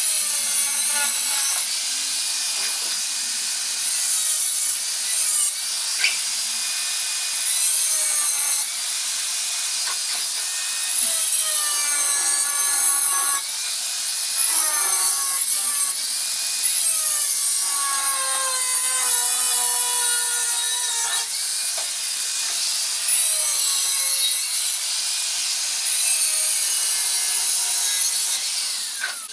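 Angle grinder cutting along the edge of floor tiles. The motor pitch dips and rises as the disc bites and eases off, and the cutting hiss swells and drops every second or two.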